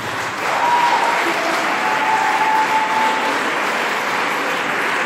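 Audience applauding with steady clapping that starts about half a second in.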